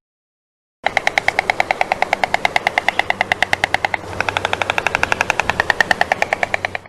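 A rapid rattle of sharp, evenly spaced clicks, about eleven a second, each with a ringing pitch; the pitch shifts about four seconds in, and the rattle cuts off suddenly.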